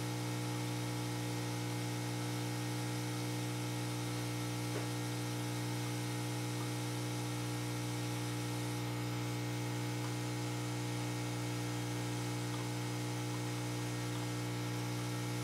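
Steady electrical mains hum, with one faint tick about five seconds in.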